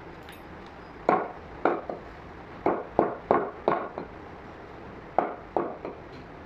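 Butcher's cleaver chopping mutton into chunks on a wooden chopping block: about ten sharp chops in quick groups, starting about a second in.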